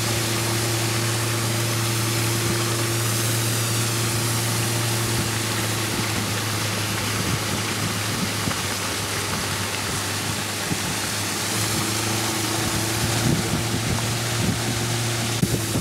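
Small open motorboat running steadily at speed: an even engine hum under the rush of water and wind from the hull and wake.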